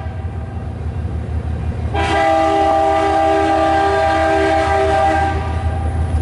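Freight locomotive's air horn sounding one long chord of several tones, starting about two seconds in and lasting about three and a half seconds, over the steady low rumble of the train. It is the horn warning for the road crossing the train is passing.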